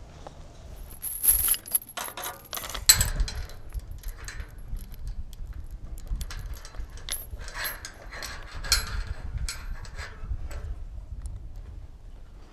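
Metal chain clinking and rattling in irregular bursts as it is handled on a metal farm gate.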